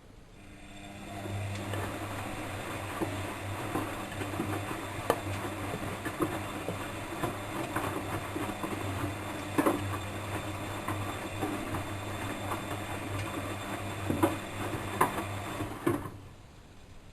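Bosch WFM3010 washing machine drum turning on a wash cycle: the motor starts about half a second in and runs with a steady low hum and scattered irregular clicks and knocks, then winds down and stops shortly before the end.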